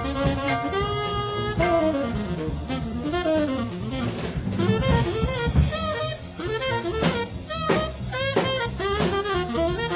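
Tenor saxophone playing a fast bebop solo in quick running lines over rhythm changes in B-flat, with a jazz drum kit accompanying and several sharp drum accents in the second half.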